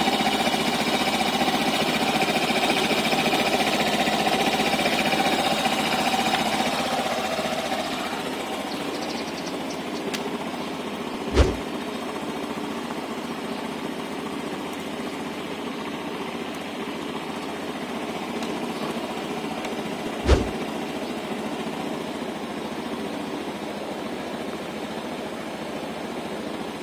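Honda Genio 110 scooter's single-cylinder engine idling steadily as it warms up after its first start of the morning, loud close to the exhaust at first and quieter after about seven seconds. Two sharp knocks, about nine seconds apart, are the loudest moments.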